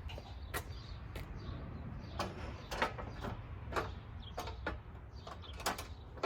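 Irregular metal clicks and knocks, about a dozen, as an aluminium tube door is handled and set onto its hinges.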